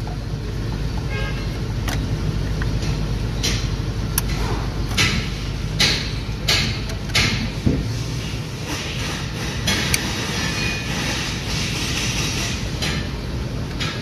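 Plastic wiring-harness connectors on an engine control module clicking and rattling as they are handled and worked loose, over a steady low hum that drops away about eight seconds in.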